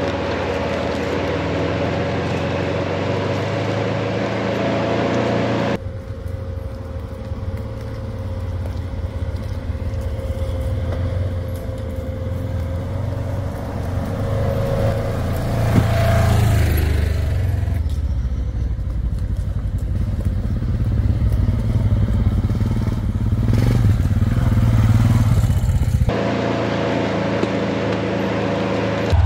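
Off-road vehicle engine running steadily while driving along a trail, with scattered clicks and crackles. The sound changes abruptly about six seconds in and changes back about three seconds before the end.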